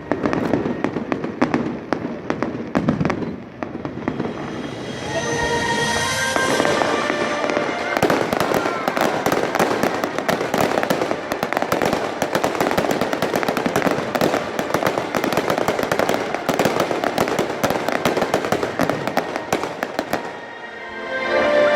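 Fireworks going off in quick succession: many sharp bangs and pops that thicken into a dense, continuous crackle from about 8 seconds in until near the end. Music plays alongside.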